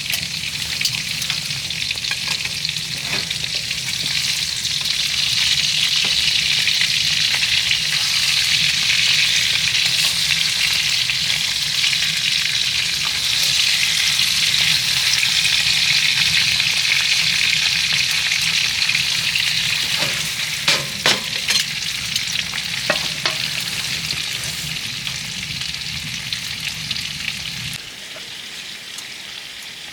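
Food sizzling and frying in a hot pan: a steady loud hiss, with a few sharp knocks of a utensil against the pan about two-thirds of the way through. The sizzle dies down near the end.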